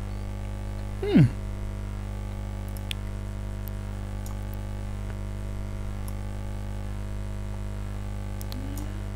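Steady electrical mains hum: a low buzz with many evenly spaced overtones that never changes. About a second in, a brief, louder sound slides sharply down in pitch.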